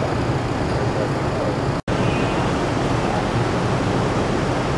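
Steady city street and traffic noise, an even low rumble with hiss, broken by a split-second dropout about two seconds in.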